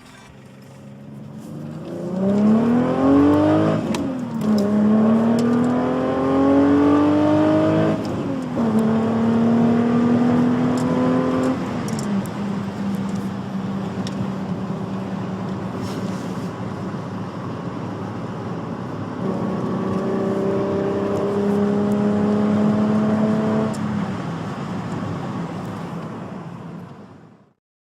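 Volkswagen Golf III VR6 with a Magnaflow exhaust accelerating through the gears: the engine note climbs and drops at three upshifts about four seconds apart. It then holds a steady cruise, pulls up again briefly, and stops abruptly near the end.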